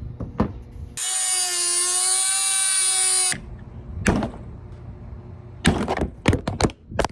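Power grinder running for about two seconds with a steady high whine as it grinds down the protruding end of a bolt, then stopping abruptly. A sharp knock follows, then a quick cluster of sharp knocks and clatters near the end.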